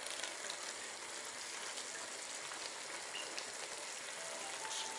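Pork-neck stew with tomato sauce sizzling in a kazan on a gas burner while it is stirred, a steady crackling hiss.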